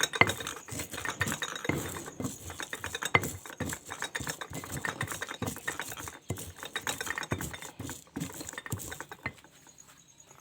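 Spices being ground with a pestle in a stone mortar (ulekan and cobek): rapid, irregular knocking and scraping of stone on stone, stopping about nine seconds in.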